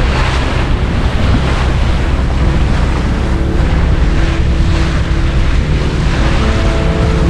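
Strong wind buffeting the microphone over the rush of the sea, on a sailboat under way.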